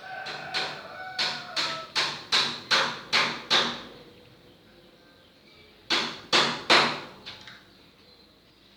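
A quick run of sharp knocks, about three a second for three seconds, then three more knocks a couple of seconds later.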